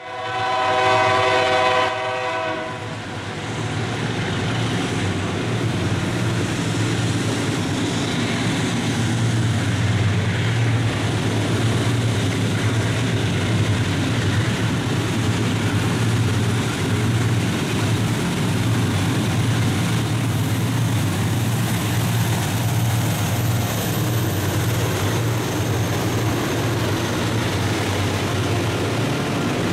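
A diesel freight locomotive's air horn sounds one chord-like blast of about two and a half seconds. Then comes the steady low rumble of the passing locomotives' diesel engines, mixed with wheel-on-rail noise.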